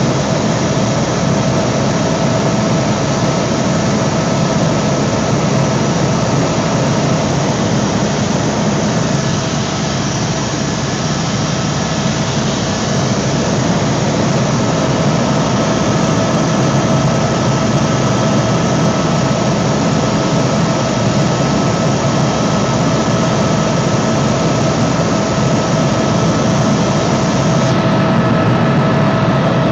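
Helicopter cabin noise in flight: a loud, steady drone of turbine engine and rotor with a constant whine on top.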